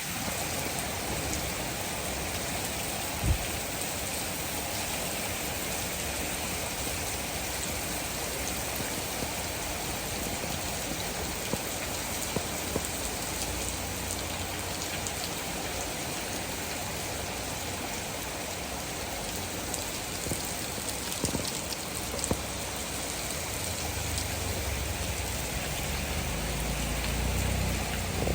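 Steady rain falling, with a few louder single drops tapping now and then. A low rumble builds near the end.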